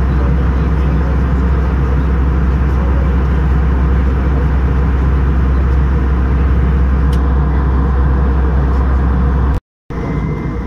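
Steady cabin drone of an Airbus A320 in flight, engine and airflow noise heard from inside the cabin, with a heavy low rumble. It cuts out briefly near the end, then comes back a little quieter with a faint, steady high whine.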